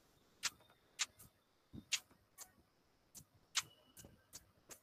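A faint run of sharp, short clicks at uneven intervals, about two a second.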